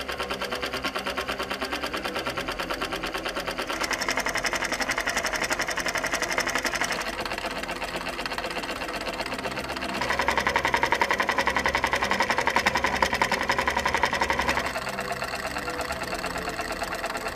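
A homemade paper-clip solenoid engine running: a fast, even mechanical clatter as the solenoid drives its wire crank and flywheel round. The clatter gets louder and quieter in steps a few times.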